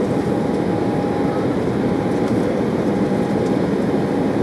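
Steady cabin roar of an Embraer 190 airliner's GE CF34-10E turbofans and airflow, heard from inside the cabin, with a faint steady whine running through it.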